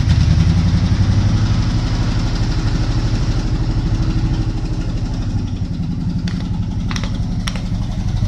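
An old Jeep's engine idling steadily just after starting. Late on, three sharp pops a little over half a second apart as its tyres roll over and burst grapefruit.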